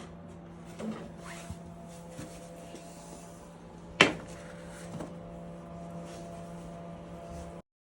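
Steady hum with light handling rustles and knocks, and one sharp click about four seconds in. The sound cuts off abruptly near the end.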